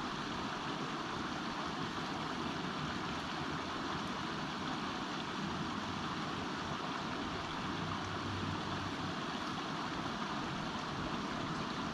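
A small mountain creek running over rocks: a steady, even rush of water.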